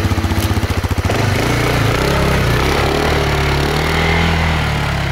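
TGB Target 600 EFI quad's single-cylinder engine running. Its firing pulses are rapid and even at first, then after about a second they settle into a steady drone that rises a little as the quad pulls away.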